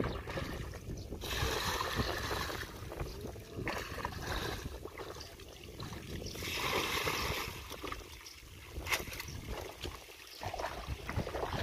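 Bucketfuls of muddy pond water being tipped out, each pour a splash lasting about a second: one about a second in and another about six seconds in, with sloshing and wading in the shallow water between.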